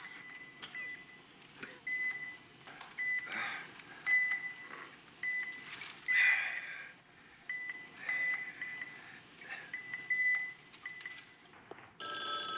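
Patient monitor giving short, high electronic beeps, about one or two a second, somewhat irregular. Near the end a telephone starts ringing.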